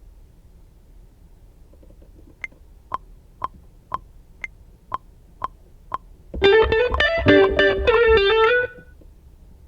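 A metronome-style click ticks eight times at two clicks a second, the first of each group of four accented, like a two-bar count-in. Then a short melodic riff plays for about two seconds and cuts off abruptly.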